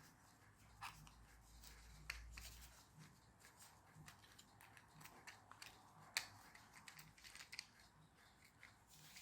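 Near silence broken by faint, scattered clicks and light rubbing, a small plastic toy car being handled during disassembly, with a slightly sharper click about six seconds in.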